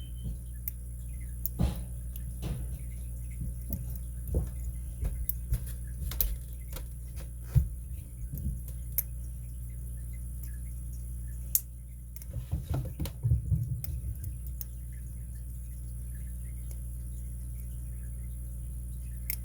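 Light, scattered clicks and ticks of a lock pick and tension tool working the pin stacks in a Master Lock 930/950 padlock's six-pin Loto core, with a busier run of rattling clicks about twelve to fourteen seconds in, over a steady low hum.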